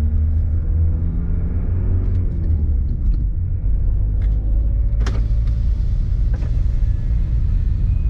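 Citroën car driving on a worn, patched road, heard from inside the cabin: a steady low rumble of road and engine noise. A sharp knock comes about five seconds in.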